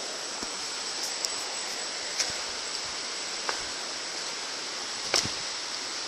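Rushing river water, a steady even hiss, with a few sharp clicks and knocks scattered through it, the loudest about five seconds in, and a thin steady high tone above it.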